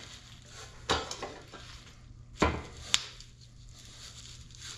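Metal coilover shock assemblies handled on a workbench: a knock about a second in, a duller thump a little after two seconds, then a sharp metallic click. A steady low hum runs underneath.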